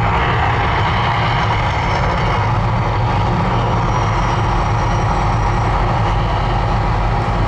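The Mirage volcano show's steady, loud low rumble, with a wash of noise above it, as the eruption winds down.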